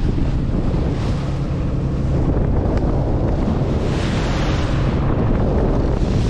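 Wind buffeting the microphone on a fishing boat at sea, over the rush of water along the hull and a low steady engine hum, with a gust swelling about four seconds in.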